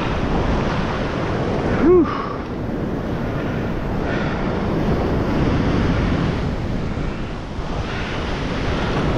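Ocean surf washing up a sand beach, waves breaking and foam running over the wet sand, with wind buffeting the microphone. A brief tone that rises and then falls cuts through about two seconds in.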